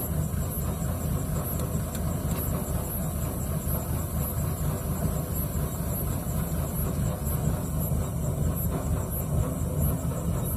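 Kubota rice combine harvester running steadily, a low, even engine and machinery noise, with a faint high ticking repeating over it.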